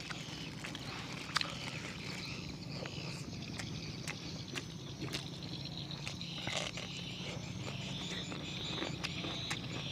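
Close-up eating sounds: chewing, with scattered wet clicks and smacks of the mouth, over a steady low hum of outdoor ambience.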